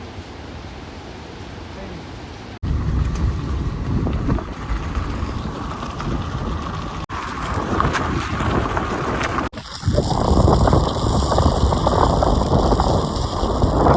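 Steady rush of falling water from a monsoon waterfall, with wind noise on the microphone. It changes abruptly three times where the clips are cut, and is loudest and heaviest in the last few seconds.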